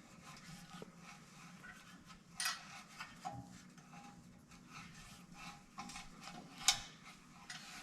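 Faint metal-on-metal scraping and small clicks as a 3/8-16 starter tap, turned with a crescent wrench, cuts threads into quarter-inch steel; two sharper clicks stand out, about two and a half seconds in and near seven seconds.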